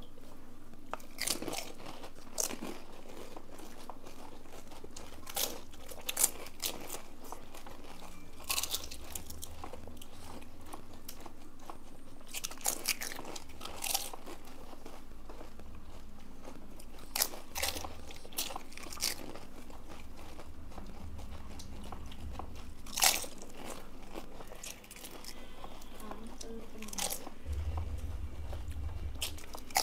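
Crisp pani puri shells cracking and crunching as people bite into them and chew, in irregular scattered crunches, a few of them sharper and louder.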